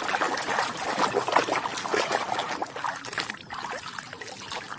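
Water splashing and trickling as a toy is washed by hand, in irregular small splashes that grow softer in the second half.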